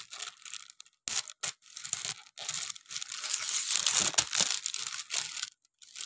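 Scissors cutting through a plastic mailer bag, with the plastic crinkling as it is cut. The sound comes as a run of short crackly snips, a few separate ones at first, then a denser stretch through the middle, ending in a short pause.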